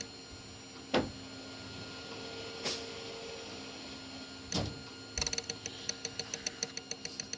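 Off-camera handling of small objects over a steady low hum: three separate soft knocks, then a quick run of light clicks in the last couple of seconds.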